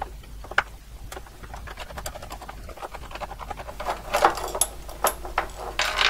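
Screwdriver turning out the screw of a metal clamp bracket that holds a CRT drive board, with light metal clicks and scrapes, more of them in the last couple of seconds.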